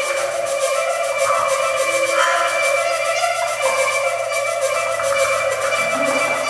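Experimental music on hechtyphon and microtone duplex: long held wind-like tones, with a fast flutter in the high range. A low note comes in about two seconds in.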